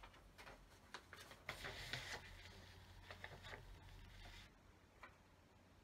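Faint handling sounds at a table: paper rustling and scattered small clicks of pens and paper being moved, with a brief rustle about one and a half seconds in and a last click about five seconds in.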